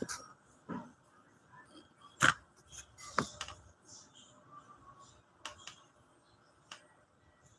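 Scattered light clicks and taps of small objects handled at close range, with sharper knocks about two seconds in and again about three seconds in.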